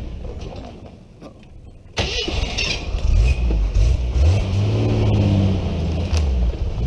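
Jeep CJ7 engine running as the Jeep drives. It comes in suddenly much louder about two seconds in, then revs with its pitch rising and falling.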